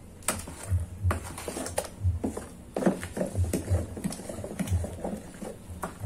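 A spoon stirring thick fresh-corn tamal dough in a plastic basin, with irregular knocks and stirring noises against the bowl.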